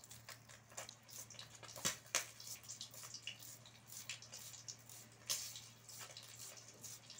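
Knife slicing through a red onion held in the hand: a string of quick, irregular crisp snicks over a faint steady low hum.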